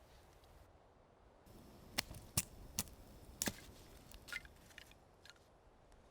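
Dry wood cracking in a run of sharp snaps: four loud ones close together about two seconds in, then a few fainter ones.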